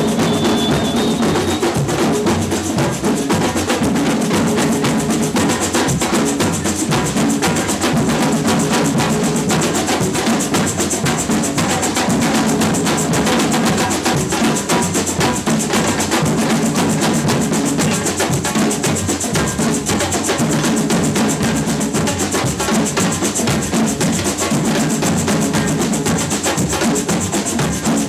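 Samba percussion band playing a batucada groove, bass drums and snare drums beating together in a steady, unbroken rhythm.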